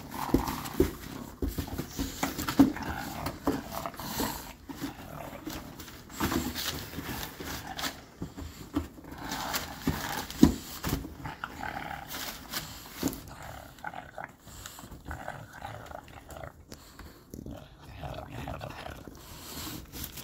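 A teething bulldog puppy growling and grunting while it worries a cardboard box, with scattered knocks of cardboard and rustling of newspaper.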